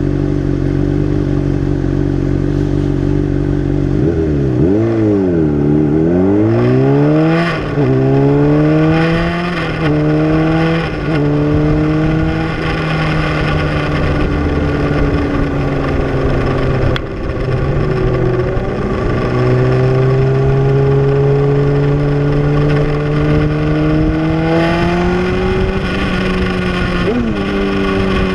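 Honda CBR600RR inline-four engine under way on the street: running steadily, then dropping and revving back up about four seconds in, climbing through several quick upshifts, each a short rising pitch cut off by the next gear. It then cruises, pulls up slowly in pitch and shifts again near the end.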